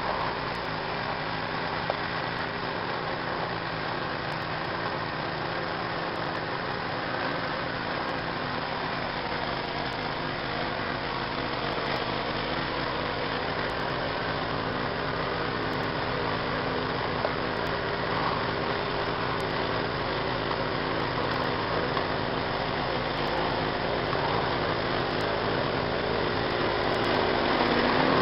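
Gas snowblower engine running steadily as the machine blows snow, growing louder near the end as it comes close.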